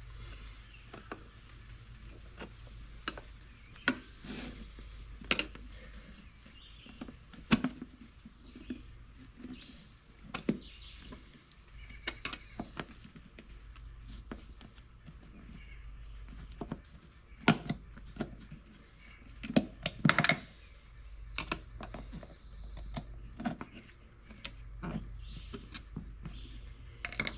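Irregular clicks and knocks of hand work on a small wheelbarrow wheel, as the new tire is worked onto the rim over its inner tube, with a steady low hum underneath.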